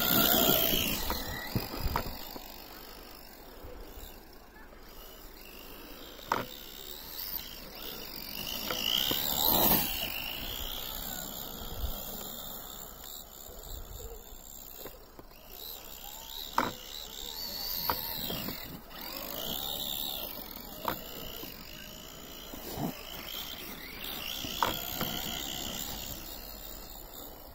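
Brushless electric motor of a JLB Cheetah 1/10-scale RC truggy whining, its pitch rising and falling as it accelerates and lets off, loudest near the start and about ten seconds in. A few short sharp clicks are scattered through it.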